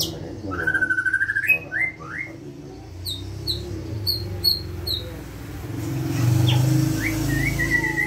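Caged white-rumped shama (murai batu) singing: a rising, quick-pulsed whistle in the first couple of seconds, then short high-pitched notes, and a held whistle near the end. A low rumble swells in the background about six seconds in.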